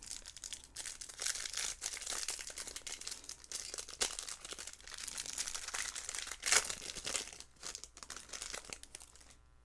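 Bowman's Best trading-card pack wrapper being torn open and crinkled by hand, a dense crackle, loudest about six and a half seconds in, dying away near the end as the cards come out.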